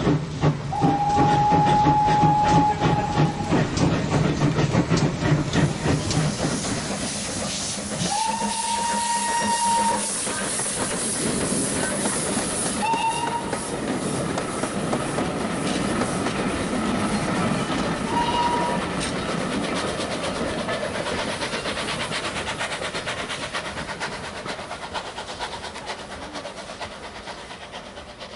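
Steam locomotive running with a rhythmic clatter. Its whistle blows four times: two long blasts, then two short toots. The train sound fades away near the end.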